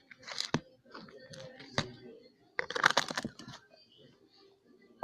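Handling noises from slime-making containers and packaging: a few sharp clicks, then a dense burst of crinkling and crunching about two and a half seconds in.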